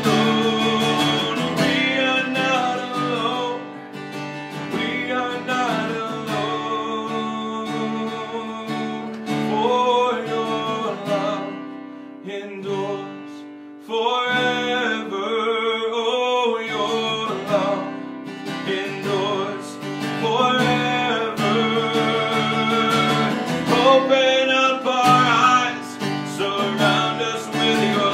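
A man singing a worship song while strumming an acoustic guitar. The music drops quieter about twelve seconds in, then picks up again a couple of seconds later.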